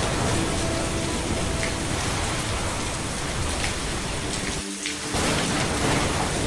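Steady heavy rain falling, an even dense hiss with a strong low rumble under it, which drops out briefly about two-thirds of the way through.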